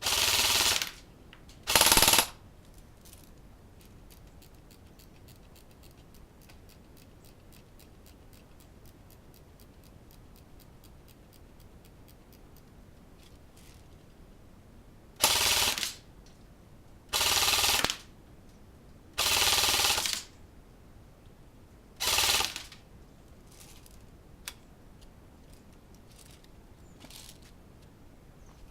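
CYMA CM.048 AKM airsoft electric gun firing on full auto in six short bursts: two in the first two seconds, then four more after a long pause.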